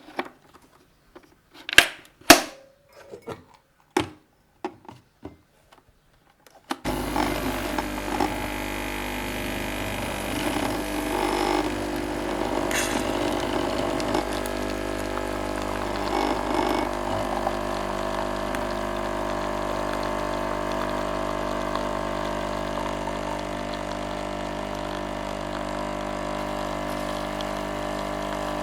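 A few separate clicks and knocks from handling the machine, then, about seven seconds in, a Nescafé Dolce Gusto capsule coffee machine's pump starts abruptly and runs with a steady hum as it brews coffee.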